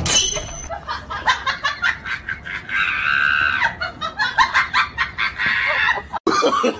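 Chicken-like clucking and cackling: a run of quick, uneven clucks with a drawn-out squawk about three seconds in and a shorter one near five seconds, cutting off suddenly just after six seconds.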